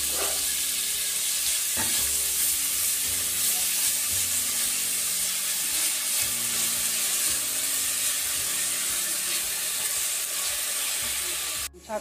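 Chopped onion sizzling as it fries in a pot, stirred and scraped with a silicone spatula. The sizzle stops abruptly near the end.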